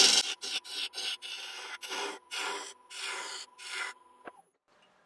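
Woodturning gouge taking a run of short, light cuts on wet cherry spinning on a lathe, about two strokes a second, over the lathe's steady whine. A little after four seconds the cutting and the whine stop, with a click.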